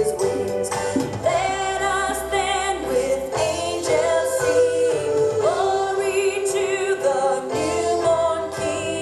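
Recorded 1960s Christmas song about angels: a choir of voices singing long held notes over instrumental backing.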